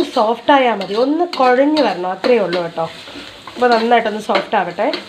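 Metal spatula scraping and stirring chopped onions around an iron kadai, with the onions sizzling as they fry in hot oil.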